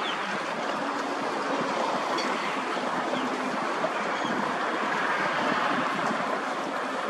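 Steady outdoor rushing ambience beside open water, with a few faint, short high chirps here and there.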